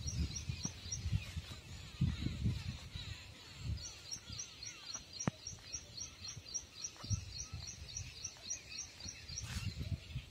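Outdoor ambience along a grassy track: a steady series of short, high chirps, about three a second, from a bird or insect, stopping for a few seconds in the middle. Under it come irregular low thuds and rustling from footsteps and the handheld camera moving.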